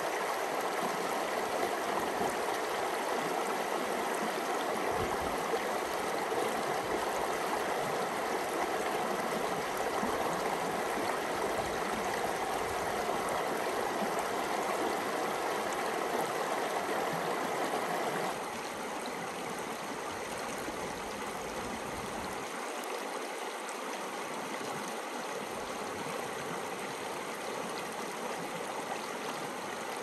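Mountain river water flowing with a steady rush. About eighteen seconds in, the sound cuts abruptly to a slightly softer, thinner rush.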